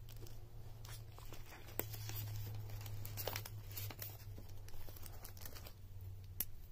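Clear plastic binder sleeves and paper bills rustling and crinkling as hands handle them, with a few light clicks.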